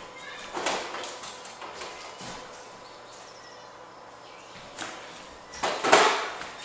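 Rustling and light knocks of someone handling bowls of noodles at a kitchen counter, with a louder rustling burst near the end.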